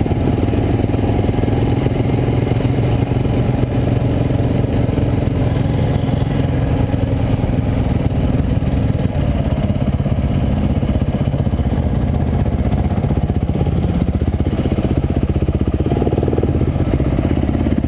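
Dirt bike engine running steadily close to the microphone, its pitch shifting a little now and then.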